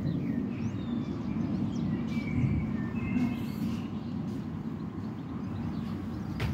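Outdoor ambience: a steady low rumble, with a few faint bird chirps in the first half.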